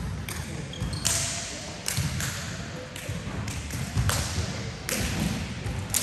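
Basketball bouncing on a gym court, about seven sharp, irregularly spaced bounces that echo in the hall, over a background of voices.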